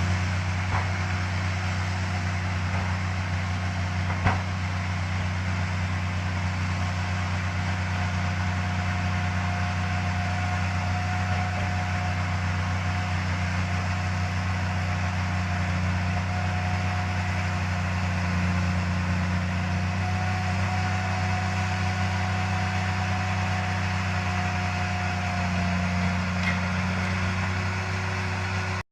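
Heavy engine running steadily, a low drone with a faint whine above it, and a single sharp click about four seconds in.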